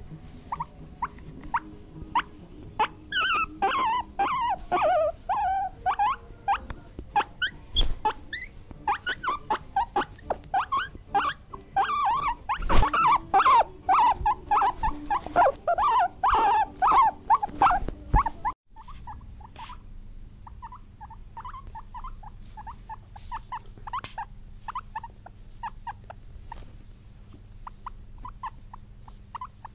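Guinea pig squeaking in rapid strings of short, high squeaks, some of them gliding up and down. About two-thirds of the way through it breaks off abruptly and fainter, quicker squeaks follow over a low hum.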